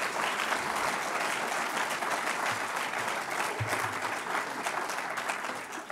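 Audience applauding, dense steady clapping that starts to die away near the end.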